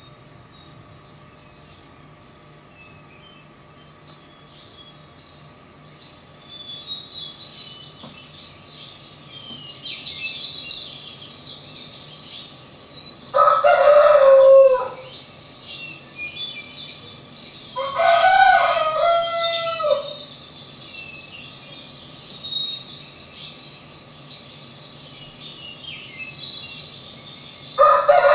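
Birds chirping and twittering, growing louder over the first several seconds. A rooster crows three times: about halfway in, again a few seconds later, and once more near the end.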